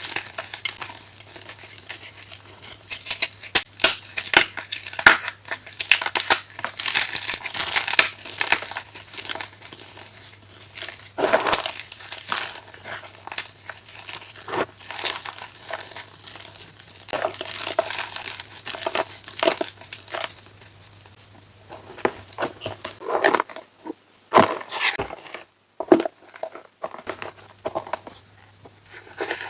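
Chalk chunks being crushed and crumbled, a dense run of crisp crunching and crackling that thins out to a few separate, louder crunches near the end.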